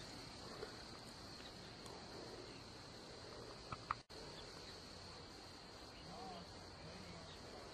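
Faint, steady chirring of crickets over a low hiss, with a couple of small clicks and a brief cut-out about four seconds in.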